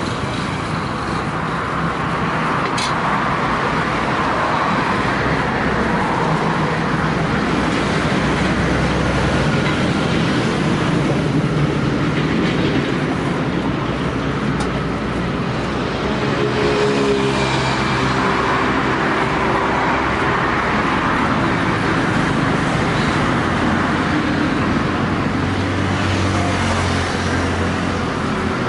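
Continuous road traffic: motor vehicles running and passing, a steady wash of engine and tyre noise with engine hum swelling now and then.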